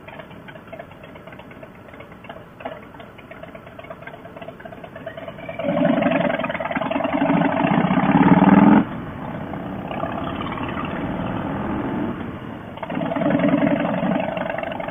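Cruiser motorcycle engines in traffic. A quieter, steady stretch at first, then the engine note rises loudly for about three seconds as the bikes accelerate. It drops off abruptly, as when the throttle is rolled off or a gear is changed, runs at a steadier level, then swells again near the end.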